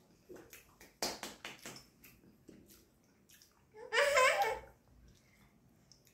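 A few quick clicks and rustles of toys being handled in a box, then a toddler's short high-pitched squeal about four seconds in.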